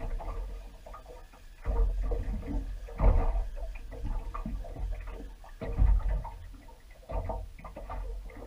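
Wind buffeting the microphone in several gusts, with water slapping and lapping against a small aluminium boat's hull.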